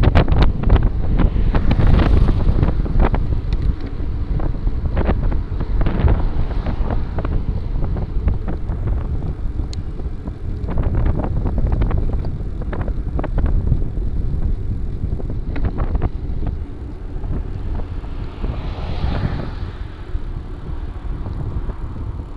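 Wind buffeting the microphone of a camera mounted on a moving bicycle, with scattered clicks and rattles over the road surface. A car passes close by about two seconds in, and another vehicle swells past near the end.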